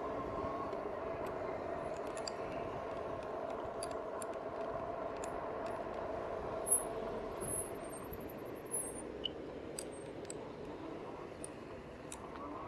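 2018 RadMini fat-tyre e-bike rolling along a brick path at about ten miles an hour: a steady hum from the moving bike. About seven seconds in come two seconds of loud, very high-pitched squeaking in quick pulses, the loudest sound here.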